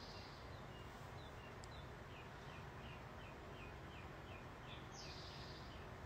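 A bird chirping faintly: a run of short high chirps, about three a second, with a higher squeak about five seconds in, over a steady low background hiss.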